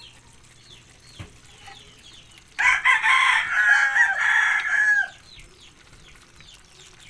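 A rooster crowing once, for about two and a half seconds, starting about two and a half seconds in and ending on a falling note.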